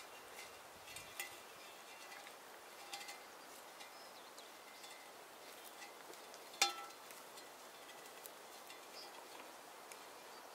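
Faint outdoor ambience of walking through grass, with scattered light ticks and short chirps, and one sharp metallic clink with a brief ring about six and a half seconds in.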